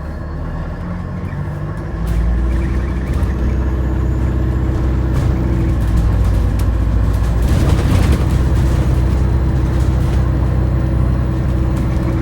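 Inside an Alexander Dennis Enviro400H City hybrid double-decker bus under way: a steady low drone with steady whining tones over it, which gets louder about two seconds in. These are the odd drivetrain noises this type of bus is known for.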